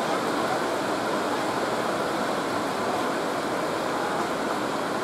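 Rain falling steadily, an even hiss with no change in loudness.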